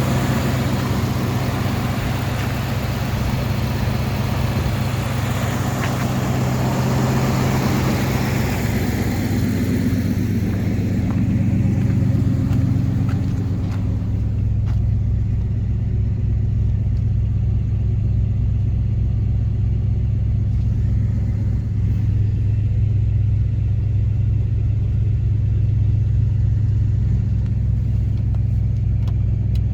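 Jeep Grand Cherokee's 5.2-litre V8 idling steadily. A higher hiss over it fades away during the first dozen seconds or so.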